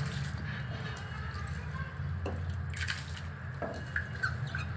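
Pot of water at a rolling boil on a gas stove, with a steady low rumble, as soaked basmati rice is dropped into it by hand; a few light clicks and knocks.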